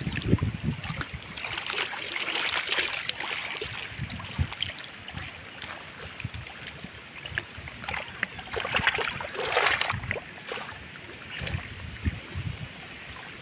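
Choppy lake water splashing and lapping against a moving boat's hull, swelling into louder splashes twice, with gusts of wind buffeting the microphone.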